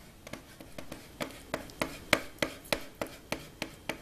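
Kitchen knife chopping boiled egg white on a plastic cutting board: a steady run of sharp knocks, about three a second, growing louder about a second in.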